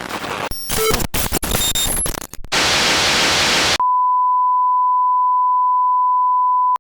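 A broadcast signal breaking up and going off the air: choppy, glitching noise with clicks and short beeps, then about two and a half seconds in a burst of loud white-noise static, which gives way to a single steady test tone that cuts off suddenly.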